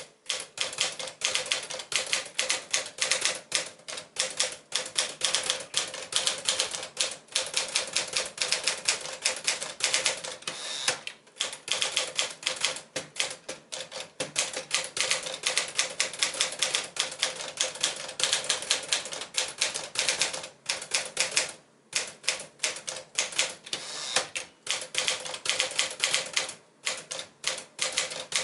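A 1959 Smith-Corona Sterling manual portable typewriter being typed on: rapid runs of key strikes, several a second, broken by a few brief pauses.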